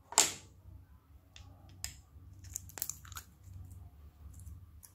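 Glossy slime squelching as it is handled and pulled from a glass bowl by hand. A loud sharp squelch comes just after the start, then scattered small sticky clicks and crackles.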